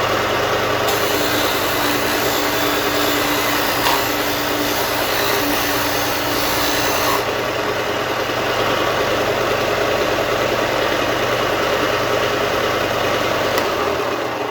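Bauer combination belt and disc sander running, its 6-inch sanding disc grinding a piece of wood, with a brighter, hissier stretch from about one to seven seconds in while the wood is pressed to the abrasive. The motor winds down near the end.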